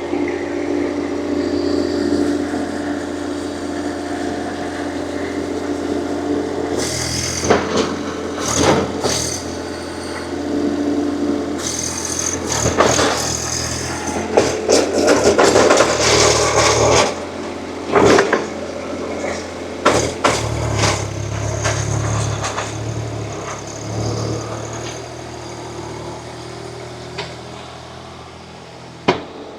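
Wheeled mini excavator's diesel engine running steadily, with repeated clanks and scrapes as the machine works the ground.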